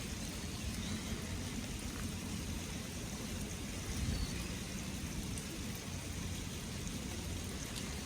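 Steady hiss of wet snow falling, with a low rumble underneath.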